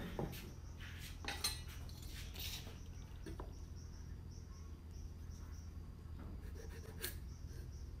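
Workbench handling sounds: a hand rubbing along a wooden board with small knocks, then a steel carpenter's square set down on the wood and a sharp click near the end. A faint high chirp repeats a few times a second in the background over a low steady hum.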